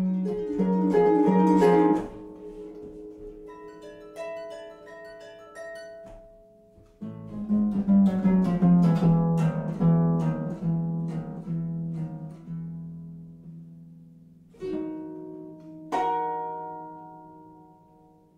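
Concert harp playing solo: loud plucked chords, then a quieter run of single notes. About seven seconds in comes a second loud passage that slowly fades, and near the end two last chords are plucked and left to ring out.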